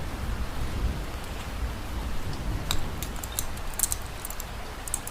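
Steady hiss of heavy rain, with a few light, sharp clicks in the second half.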